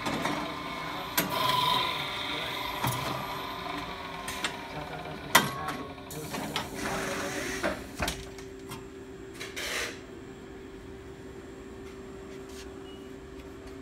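Automatic pants cutting table at work: the electric fabric-cutting head's motor runs with a steady hum while the clamps and cutting carriage clatter and knock, with one sharp knock about five seconds in. After about eight seconds only the motor's steady hum remains.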